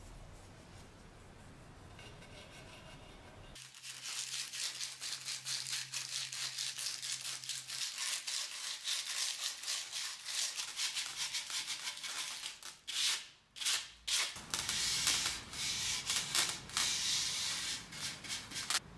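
Sandpaper rubbed by hand over the bare wood of an old picture frame, in quick back-and-forth strokes. It starts a few seconds in and stops briefly about two-thirds of the way through before going on.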